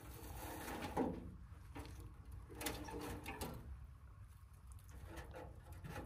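Dry grass rustling and crackling as handfuls are pushed into a small sheet-metal stove, with a few sharper scrapes and knocks against the stove, and a steady low wind rumble on the microphone.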